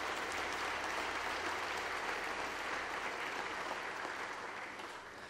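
Applause from a chamber full of parliament deputies: steady clapping from many hands that dies away near the end.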